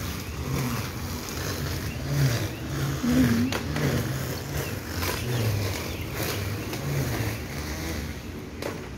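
Motor of a string trimmer cutting grass, its pitch going up and down every second or so as the engine speeds up and eases off.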